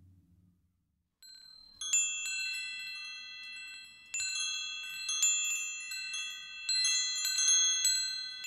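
Wind chimes ringing: a cluster of high, bright tones struck again and again, each left to ring on, starting about a second in after near silence.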